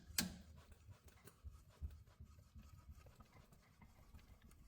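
Near silence: a faint low rumble with a sharp click just after the start and a few small, scattered knocks.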